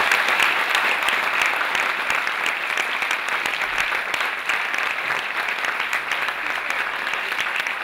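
Audience applauding: many hands clapping steadily, the clapping easing off slightly toward the end.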